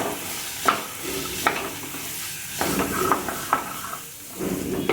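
Chopped carrot and moong dal sizzling in hot oil in a pan while being stirred, with several knocks and scrapes of the stirring utensil against the pan.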